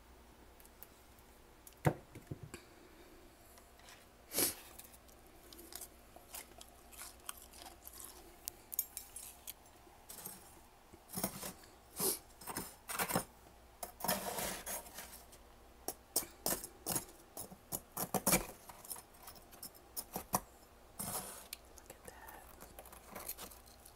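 Freezer frost crunching and crackling in short, irregular crunches: a few scattered ones at first, then many close together from about ten seconds in, thinning out near the end.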